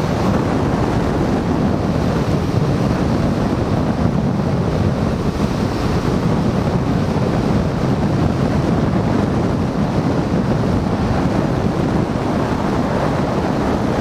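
Steady wind noise on the microphone mixed with the rush of water and motor of a small outboard-powered fishing boat running at speed.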